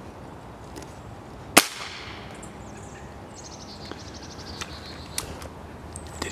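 A single sharp rifle shot about one and a half seconds in, with a brief ring after it. A falling series of high chirps follows, and there are a few light clicks near the end.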